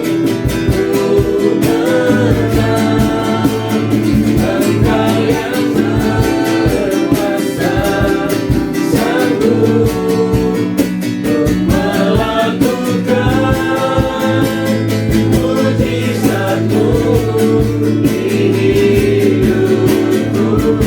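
Worship song with singing voices over guitar accompaniment and a steady beat.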